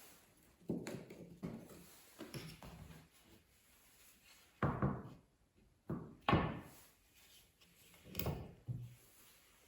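Marbles rolling and clacking down a wooden marble run, with irregular knocks and rattles as they hit the track's turns and drops, the loudest around the middle and near the end.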